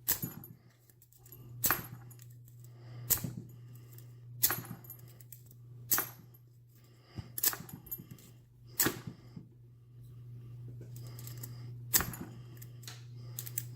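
A hook pick is pulled repeatedly out of the keyway of a brass-bodied pin-tumbler padlock to zip it, giving sharp metallic snaps as the pins spring back, about one every second and a half. The lock does not open: it resists zipping. A steady low hum runs underneath.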